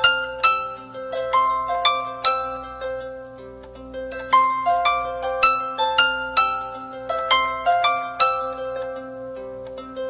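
Background music of plucked, harp-like notes in quick rising runs over held low notes.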